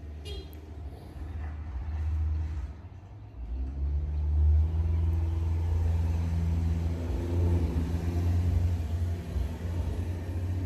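A car running with a low rumble. The engine note comes up about four seconds in as it picks up speed, then holds steady.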